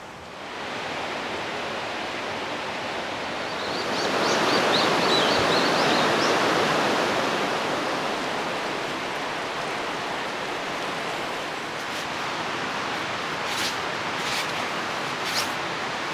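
Steady rain falling, an even rushing hiss that swells about four seconds in. A run of faint high chirps sounds around the swell, and a few sharp ticks come near the end.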